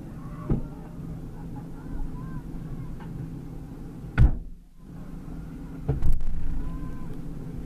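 Steady low rumble broken by a few sharp knocks: a light one about half a second in, the loudest just after four seconds, and two more close together around six seconds.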